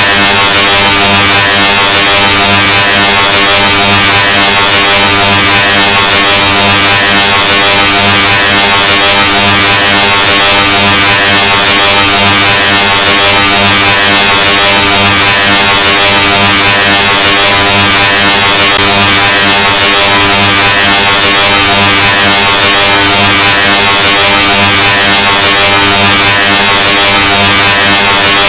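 Extremely loud, heavily distorted and clipped buzzing sound effect: a steady low-pitched buzz buried in harsh hiss, unchanging.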